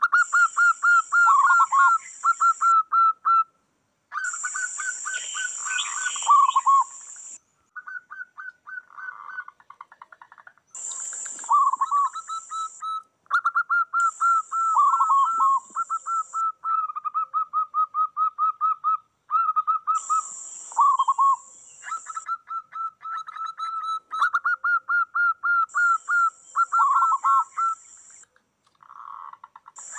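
Several zebra doves (perkutut) calling back and forth in rapid trains of short, high coos, some ending in lower dipping notes. A high, steady buzzing comes and goes in stretches of one to three seconds.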